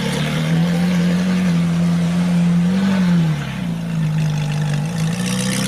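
Car engine running steadily, its pitch rising briefly about three seconds in and then settling back.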